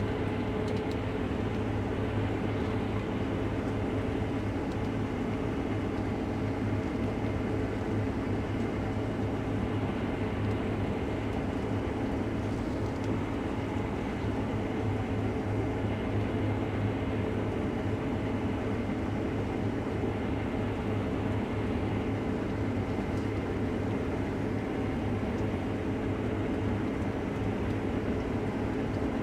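Case IH Axial-Flow combine running steadily under load while cutting wheat: an even engine and threshing drone with a low hum.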